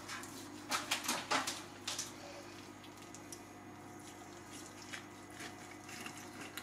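Knife and fork carving a roast chicken, the blade cutting through the browned skin and breast meat: a quick run of crackles about a second in, then a few fainter ones near the end.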